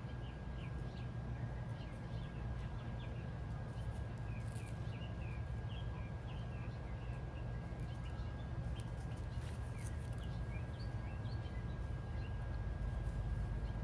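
Small birds chirping again and again in the background, many short chirps, over a steady low hum.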